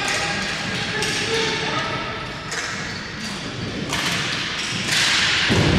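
Ball hockey play: sharp knocks of sticks, ball and boards every second or so, with a short hissing scrape about five seconds in.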